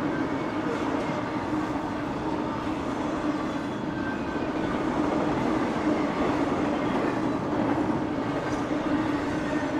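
Double-stack intermodal train's well cars rolling past on the rails: a steady rumble of steel wheels and cars, with no break or sudden event.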